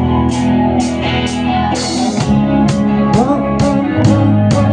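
Live band playing between vocal lines: guitar with drum kit, cymbal hits keeping a steady beat.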